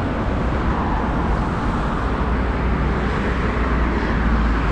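Steady street traffic rumble from passing road vehicles, with a strong deep low end and no single event standing out.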